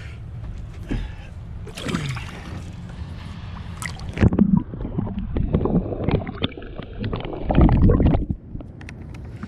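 Water sloshing and gurgling as a redfish is released over the side of a boat and the microphone goes under the surface. From about four seconds in the sound is muffled under water, with heavy low rumbles about four and eight seconds in, and it clears just before the end.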